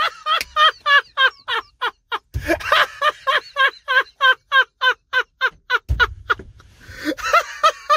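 A man laughing uncontrollably in rapid, high-pitched bursts, about four to five a second, breaking off briefly a little after two seconds in. Two low thumps, one about two and a half seconds in and one about six seconds in.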